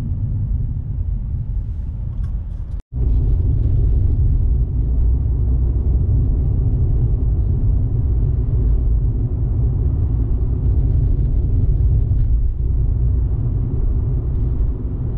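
Steady low rumble of a car driving on a road, heard from inside the cabin: engine and tyre noise. It cuts out for a moment about three seconds in and comes back a little louder.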